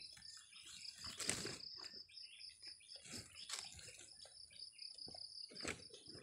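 A steady, pulsing insect trill, with about three sharp rustling knocks of cut sugarcane stalks being handled, the loudest about a second in.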